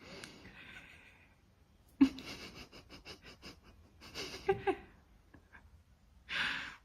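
Breathy wheezing sounds in four separate bouts, one of them a quick run of short puffs of breath.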